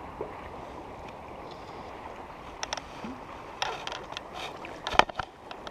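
Steady rush of a high, fast creek current, with a run of splashes and sharp knocks in the second half, the loudest about five seconds in, as a hooked rainbow trout is fought close on a fly line.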